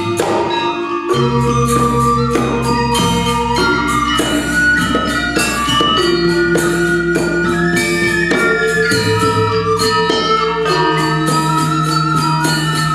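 Balinese gamelan playing: rapid, dense strokes on bronze metallophones with bright jangling percussion and drums, over held pitched tones that change every second or two. A deep low tone enters about a second in and sustains beneath the ensemble.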